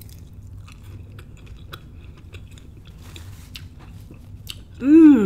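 A person chewing a mouthful of spinach and watermelon salad, with soft, scattered crunchy clicks. Near the end comes a loud, appreciative hum that rises and then falls in pitch.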